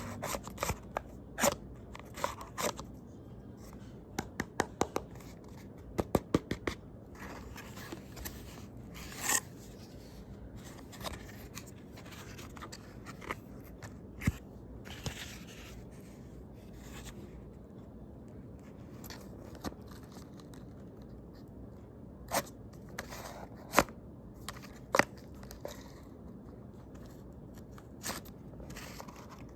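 Cardboard being cut and worked by hand: scattered, irregular sharp clicks and snips with scraping between them.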